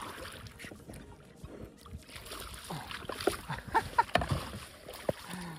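Hooked peacock bass thrashing and splashing at the water's surface beside a kayak as it is brought in and netted, with a run of sharp knocks and splashes from about two and a half seconds in.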